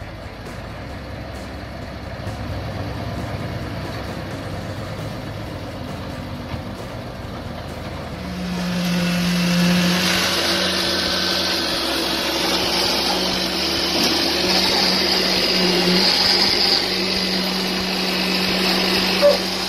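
A crane truck's diesel engine running while a concrete fence panel is lifted. About eight seconds in it gives way to a louder steady machine hum with a hiss, as wet concrete is poured down a mixer's chute into a fence form.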